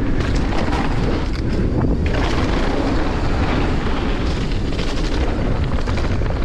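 Wind rushing over the microphone of a rider-worn camera as a downhill mountain bike descends a wet, muddy trail, with steady tyre noise and frequent knocks and rattles of the bike over the bumps.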